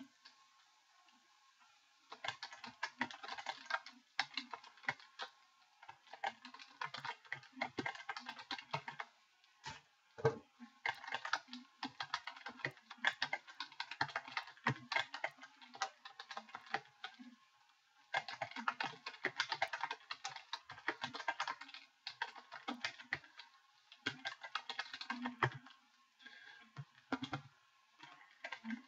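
Typing on a computer keyboard: quick runs of key clicks in bursts with short pauses, starting about two seconds in.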